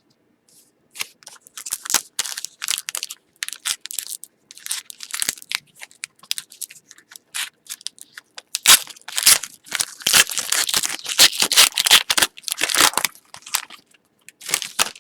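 A foil trading-card pack being torn open and its wrapper crinkled, a run of crackly rustles that gets denser and louder about nine seconds in.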